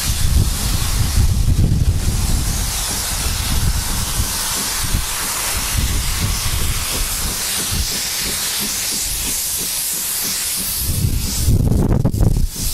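Steam locomotive Renishaw Ironworks hissing steam steadily, over wind rumble on the microphone. The hiss stops about a second before the end.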